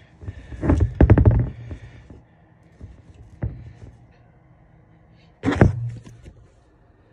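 Handling noise: bumps, knocks and rubbing against the phone as it is moved. A quick cluster comes in the first two seconds, a single knock follows about halfway, and the loudest thump comes near the end.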